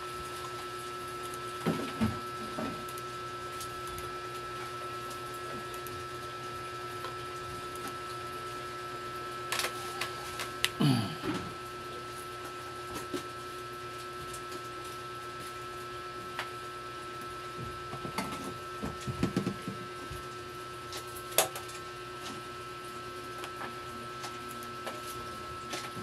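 Steady electrical hum holding a low tone and a higher whine, with a handful of scattered clicks and short knocks, the sharpest about five seconds before the end.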